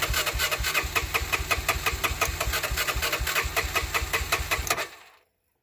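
Electric starter cranking the Honda Fourtrax 300's single-cylinder engine with an even chug, about six strokes a second, for about five seconds, then stopping. The engine does not fire because the spark plug wire is off.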